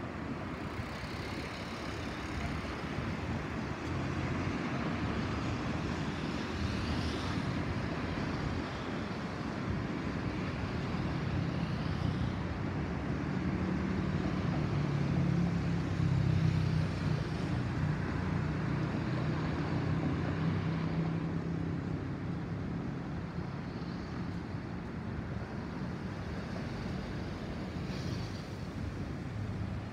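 Airbus A320-216's CFM56 turbofan engines passing overhead at altitude: a steady, broad rumble that swells to its loudest about halfway through, with a low droning hum at the peak, then slowly fades.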